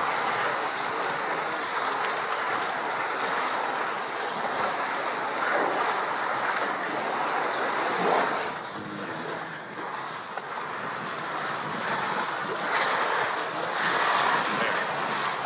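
Sea water churned by a herd of swimming walruses: continuous splashing and sloshing, with a louder splash about eight seconds in. Wind buffets the microphone.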